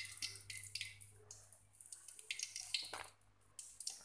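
Nuggets frying in hot oil in a wok, crackling and sizzling with many small pops. The crackling dies down briefly about three seconds in, then picks up again.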